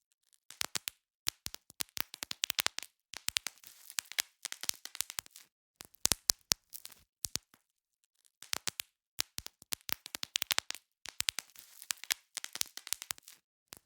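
Bubble wrap being popped: quick irregular runs of sharp pops and crackles, with short pauses between the runs and one longer pause about halfway.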